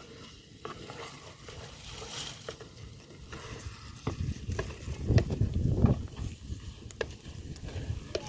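Wooden spoon stirring boiled cowpea leaves into frying onions and tomatoes in a clay pot. It knocks and scrapes against the pot over a soft sizzle, and is loudest about five seconds in.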